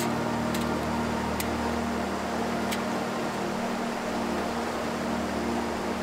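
Steady rush of a mountain stream under soft, sustained background music, with three light metallic clicks in the first three seconds as the panels of a folding metal wood stove are opened out and set in place.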